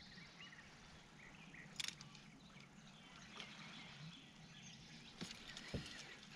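Near silence: quiet outdoor air with a few faint bird chirps, and light clicks of handling, one about two seconds in and a few near the end.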